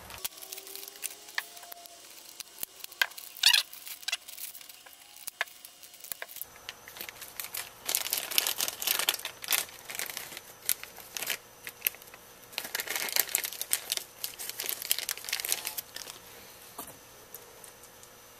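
A plastic parts bag crinkling and tearing as it is opened by hand, in two main stretches of crackling, after a few light clicks.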